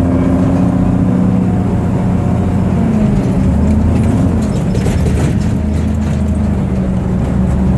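Engine of a safari tour vehicle running steadily as it drives along, its hum wavering briefly in pitch partway through.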